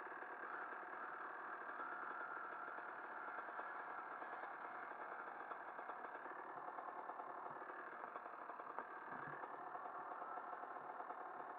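Dirt bike engine running steadily at a distance as the bike climbs a grassy slope, a faint even drone.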